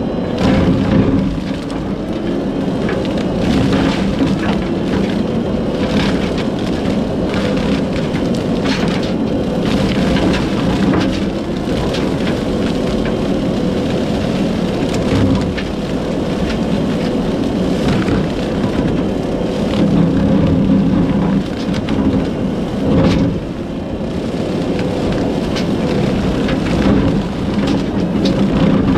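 Kubota SVL75-2 compact track loader running a Skid Pro industrial brush cutter: a steady, loud drone of the engine and spinning cutter, broken by frequent sharp cracks and snaps as brush is shredded.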